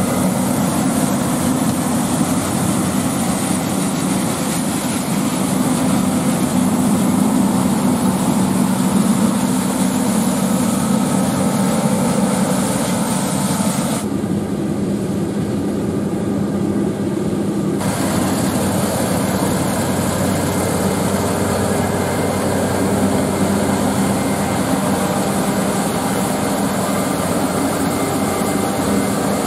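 John Deere combine harvesters running under load while cutting wheat: a steady engine drone with a constant low hum and threshing noise. The sound goes duller for about four seconds around the middle.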